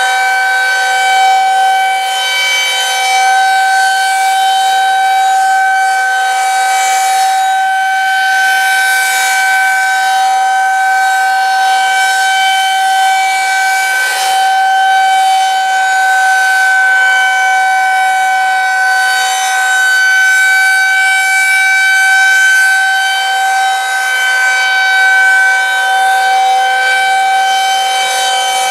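Federal Signal 2001-130AC electromechanical rotating warning siren sounding a steady, high-pitched alert tone for a tornado drill. The pitch holds steady while the loudness swells gently as the horn turns.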